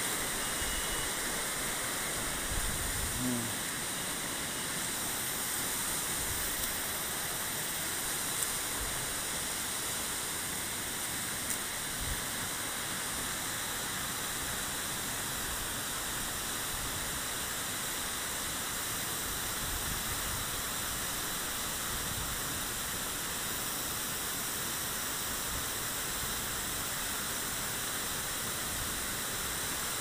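Steady rush of water from a rocky stream and waterfall, with a few faint clicks.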